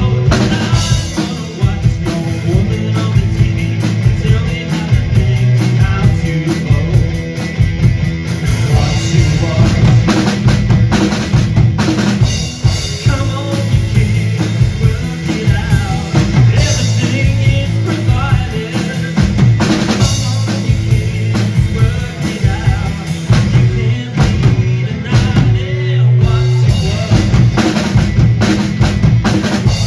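Live two-piece rock band: a drum kit played hard, with kick, snare and rimshots in a driving beat, over sustained electric guitar, in an instrumental stretch.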